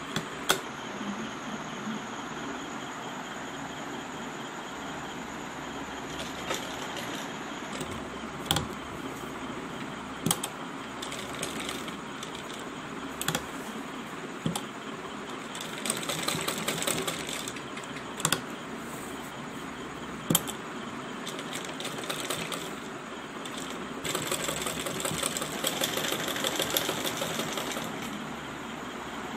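Sewing machine stitching fabric, running in a couple of longer spells, with several sharp clicks in between.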